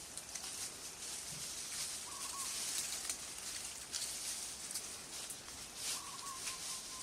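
Outdoor nature ambience: a steady high hiss, with a short animal call about two seconds in and another near the end, and a few scattered clicks.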